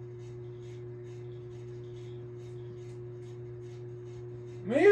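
52-inch Hunter Adirondack ceiling fan running, its motor giving a steady hum with a steady higher tone over it. The owner takes the noise for a vibration he has not yet traced.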